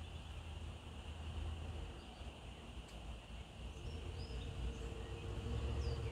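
Dusk outdoor ambience: a steady high drone of insects, with a few short bird chirps, over a low rumble that grows louder near the end. A faint steady hum comes in about four seconds in.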